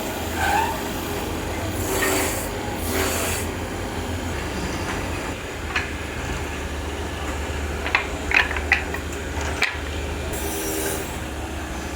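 Woodworking machine motor running with a steady hum, with two short bursts of hissing scraping on wood a couple of seconds in and a cluster of sharp knocks about eight to ten seconds in.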